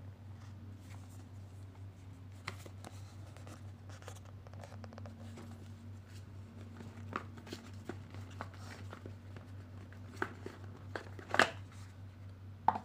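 Hands handling and turning a small cardboard box: scattered light taps, scrapes and rustles that come more often toward the end, the loudest near the end. A steady low hum runs underneath.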